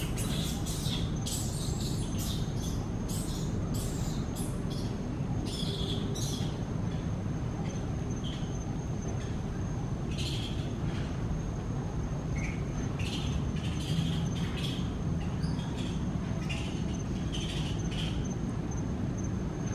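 Small birds chirping in short scattered bursts over a steady low rumble, with a thin steady high tone running underneath.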